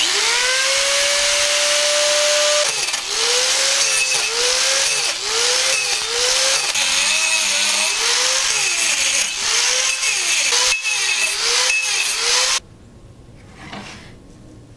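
Corded angle grinder spinning up, then grinding down the end grain of an oak stump to make it flat. Its motor whine dips and recovers over and over as the disc bites into the wood, and it stops suddenly near the end.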